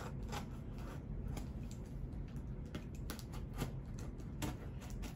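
Hands opening a small cardboard box: irregular short scrapes and rustles of cardboard and packaging, a few a second, over a steady low hum.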